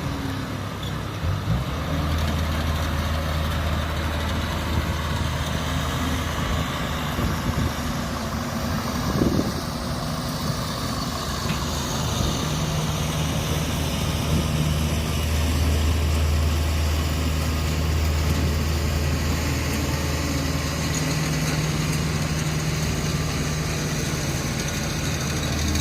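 Large diesel engine running steadily with a deep hum, which grows a little stronger for several seconds past the middle. There is one short knock about nine seconds in.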